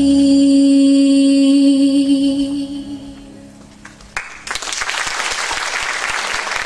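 A teenage girl's solo singing voice holds the final note of a ballad with vibrato, fading away after about three seconds. About four and a half seconds in, the audience breaks into applause.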